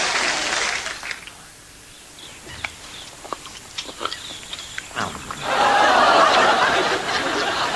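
Studio audience laughter dies away about a second in. A quieter stretch with a few light knocks follows, and then the laughter swells up again about five seconds in.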